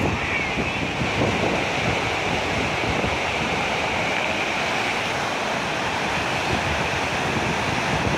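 A river in flood: a wide sheet of muddy, silt-laden water rushing and churning past in a steady, unbroken noise.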